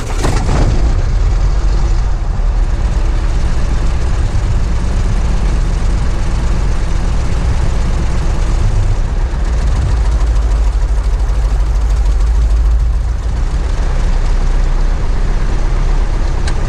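Single-engine piston airplane engine idling on the ground moments after start-up, propeller turning; a steady low drone heard from inside the cockpit.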